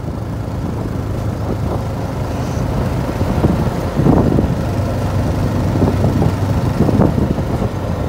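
Engine and road noise from a vehicle driving along a hill road: a steady low rumble with two brief swells, about four seconds in and again near the end.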